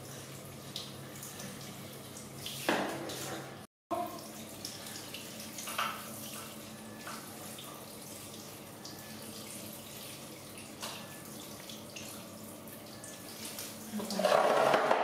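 Hand-held shower head spraying a steady stream of water over a baby monkey and onto a tiled floor: a continuous hiss of running water with small splashes.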